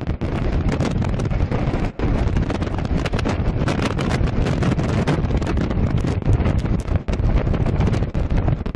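Storm wind buffeting the microphone hard and unevenly aboard a container ship at sea, a dense roar heaviest in the low end, with gusts coming in quick succession.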